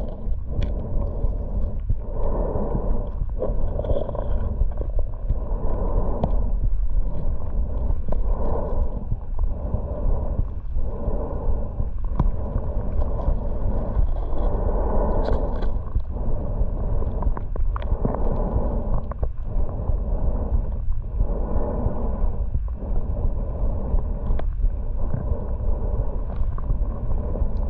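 Underwater sound picked up by a submerged camera: a constant low rumble of water with muffled whooshing swells that rise and fall about every one and a half seconds.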